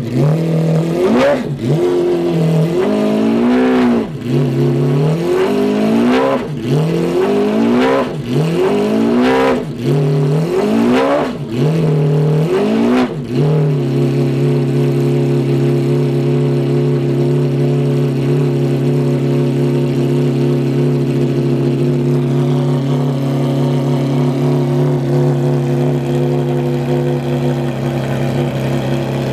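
McLaren F1 GTR Longtail's BMW V12 being revved in a run of sharp throttle blips, about one every second and a half, each rising and falling back. About fourteen seconds in it settles into a steady, even idle.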